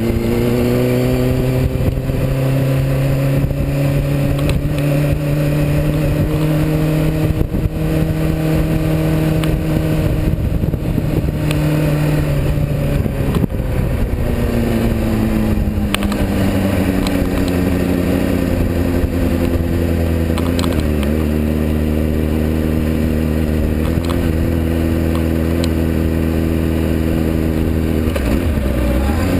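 Sport motorcycle engine running at low revs as the bike rolls slowly, its pitch steady, then dropping lower about halfway through and rising again right at the end.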